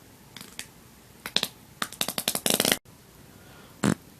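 Human farts: scattered crackles build into a rapid sputtering run of pops that cuts off abruptly almost three seconds in, then one short burst near the end.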